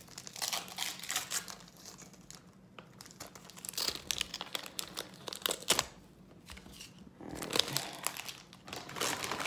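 A LEGO trading-card pack's wrapper being torn open and crinkled by hand, in irregular clusters of short crackles with brief pauses between them.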